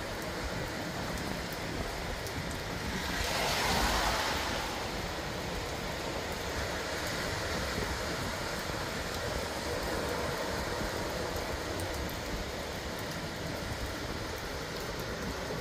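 Steady rain falling together with the wash of heavy ocean surf, an even noise that swells briefly about four seconds in.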